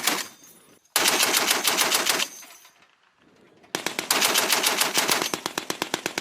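M2A1 .50-caliber heavy machine gun firing in bursts at a slow, even rate: a burst ending right at the start, a burst of a little over a second about a second in, and a longer burst of about two and a half seconds starting near four seconds in, each shot a sharp report with a brief echo trailing after the bursts.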